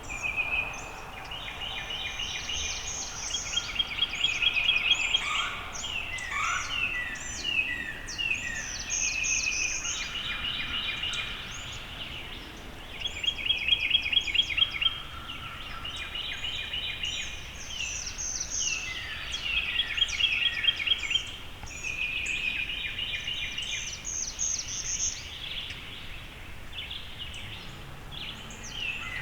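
Several songbirds singing in the woods: repeated fast trills and short high chirps, one after another, over a faint steady background hiss.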